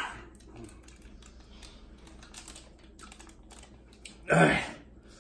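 Faint scattered clicks and crinkles from fingers handling something small, with one loud, sharp breath out about four seconds in.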